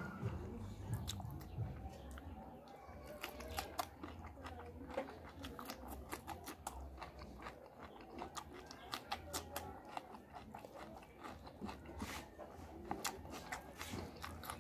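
Close-up chewing of fish and rice, with many short, irregular mouth clicks.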